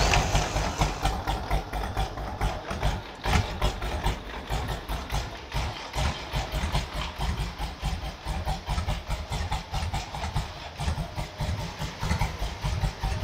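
Harley-Davidson Ironhead 1000 Sportster's air-cooled V-twin idling with an uneven, loping beat, freshly started.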